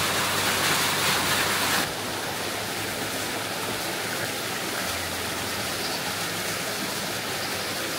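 Steady hiss of water, either rain or running water, with no distinct drops or strokes. It drops a little in level about two seconds in, then carries on evenly.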